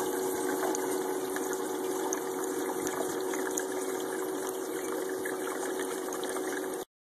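Water running steadily down a model stream bed laid out in an old sluice box, around bricks and rocks, with a steady low hum underneath; the sound cuts off suddenly near the end.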